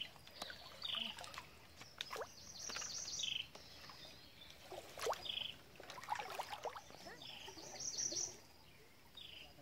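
Birds calling: a short high note repeated every second or two, with a few bursts of faster, higher chirping. Underneath is light splashing and sloshing of creek water as a man wades and ducks under the surface.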